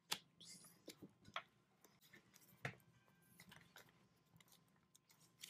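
Faint rustling and light tapping of a paper sack and stiff paper being pressed and handled on a table, in scattered short clicks.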